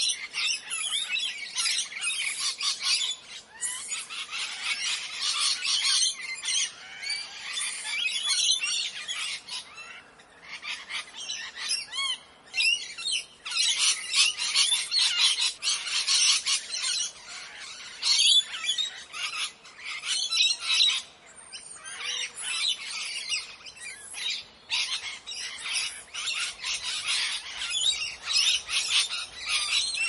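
Parrots squawking and chattering, many shrill calls overlapping densely, with a few short lulls.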